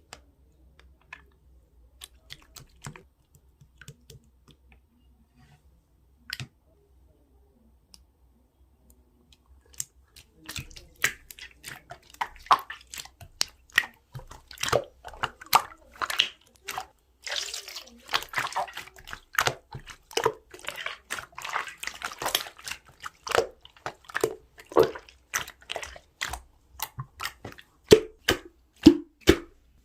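Pearl slime being squished and stretched by hand, making sticky, wet clicks and pops. These are sparse and faint for roughly the first ten seconds, then come thick and louder.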